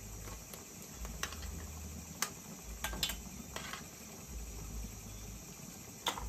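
Crickets chirring steadily, with a handful of light clicks and taps scattered through.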